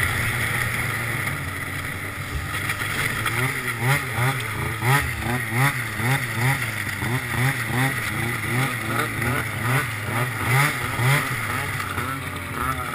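Arctic Cat ZR 900 snowmobile's two-stroke triple engine running under way. A few seconds in, its note starts rising and falling in a regular pulse, about once every three-quarters of a second.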